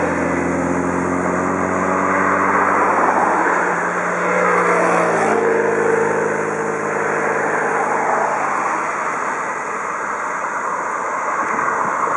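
Road traffic passing. A motorcycle engine note fades away over the first few seconds. About five seconds in, a car passes close by, its engine note dropping in pitch as it goes by. A steady rush of tyre and road noise continues underneath.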